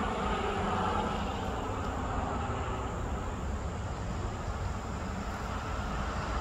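Steady low rumbling background noise, with no distinct events.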